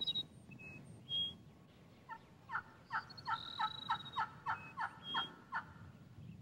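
Rio Grande wild turkeys calling: a run of about a dozen sharp, falling calls, roughly four a second, starting about two seconds in and ending a little past five seconds.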